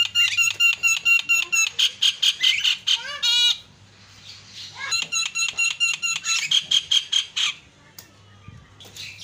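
Javan myna (jalak kebo) singing: fast runs of sharp, repeated ringing notes, about five a second, broken by a quick rattling trill about three seconds in. After a short pause a second run of repeated notes follows from about five to seven and a half seconds, with short calls again near the end.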